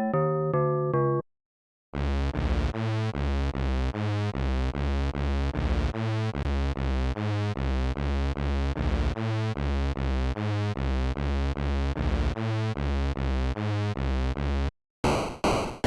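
Electronic synthesizer music in separate short pieces: a keyboard phrase breaks off about a second in, and after a brief gap a synth loop with a steady bass line and even pulses at about three a second plays. Near the end it cuts off and a different pulsing synth sound begins.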